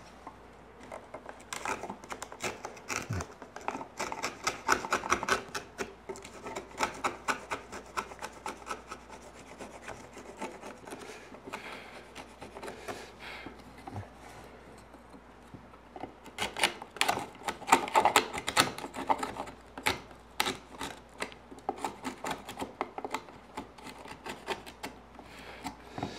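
A cranked 'indu' chisel paring and scraping the bottoms of notches cut in pine muntins, in rapid repeated strokes that come in bursts. The work trims the cross-lap notch bottoms flat so the joints fit.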